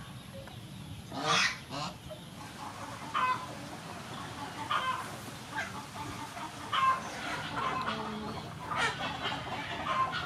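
Domestic poultry calling in the background: short pitched calls at irregular intervals of one to two seconds, the loudest about a second in and again near seven seconds.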